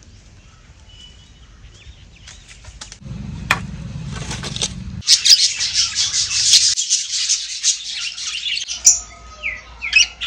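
Caged lovebirds and budgerigars chirping: a few faint scattered chirps at first, then a loud, dense run of shrill chattering for several seconds, and a few short whistled, sweeping calls near the end. A brief low rumble comes in about three seconds in.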